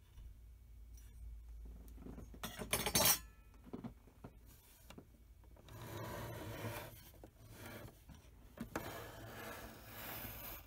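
Hands handling small metal and plastic printer parts: rubbing and scraping, with a short clatter of several light strikes about two and a half seconds in.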